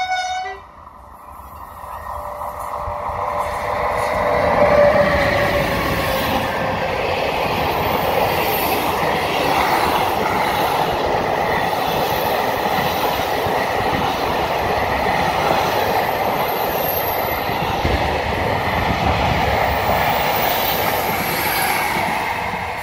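Moroccan ONCF passenger train, led by electric locomotive E 1418, approaching and passing close by. The noise grows over the first few seconds, peaks as the front goes by, then holds as a steady rumble and clatter of coach wheels on the rails. A brief high-pitched tone sounds at the very start.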